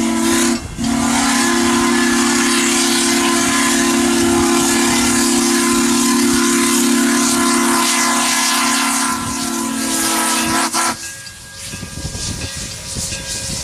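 QJ 2-10-2 steam locomotive's whistle blowing one long, steady low chord, with a brief break about half a second in and cutting off about eleven seconds in, over the hiss of the passing locomotive. After the whistle stops, the train's cars roll past.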